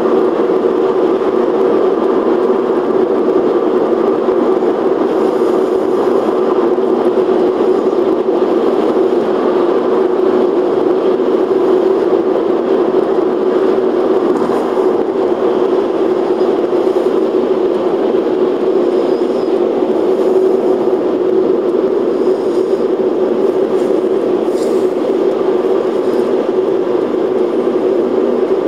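Steady road noise inside a car cruising at motorway speed: an even drone of tyres and engine, strongest in a low hum, picked up by a camcorder's microphone on the dashboard.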